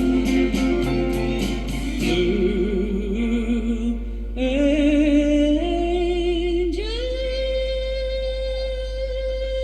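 Background music: a song with a ticking beat in the first two seconds, then a singer holding long, wavering notes, the last one held for several seconds near the end.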